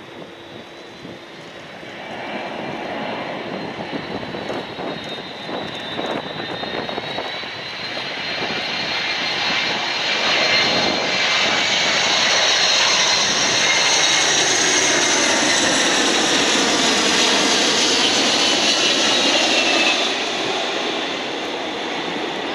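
Jet noise from the McDonnell Douglas MD-10 trijet's three General Electric CF6 turbofans on final approach with gear down. It is a roar with high whining tones that slowly shift in pitch, growing from a couple of seconds in as the plane nears, loudest through the second half, and easing slightly near the end.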